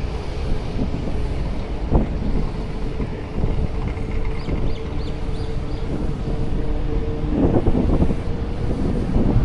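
Wind buffeting the microphone with road rumble from a moving bicycle, a sharp knock about two seconds in and a louder gust near the end. Faint high chirps come briefly around the middle.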